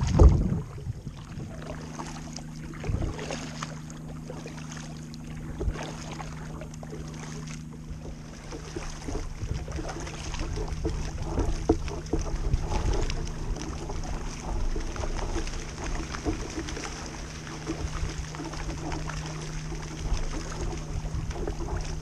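Kayak paddle strokes: the double-bladed paddle dipping and splashing in shallow water, with water washing along the kayak's hull and a steady low hum underneath.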